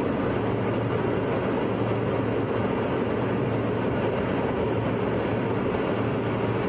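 Steady airliner cabin noise: the even rush of engines and airflow heard from inside the passenger cabin, with a faint low hum underneath.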